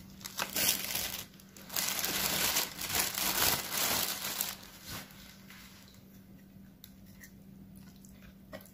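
Takeout food packaging crinkling and rustling in two spells, the second and longer one lasting about three seconds, followed by a few light clicks as the packaging and utensils are handled.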